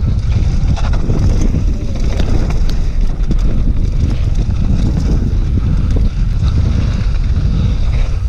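Wind buffeting an action camera's microphone during a fast mountain-bike descent, over tyres running on dirt, with many short clicks and rattles from the bike going over bumps.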